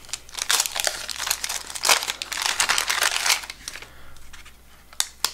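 A 1987 Topps wax pack being torn open by hand: the wax-paper wrapper crackles and crinkles for about three seconds, then goes quieter, with a few light clicks near the end.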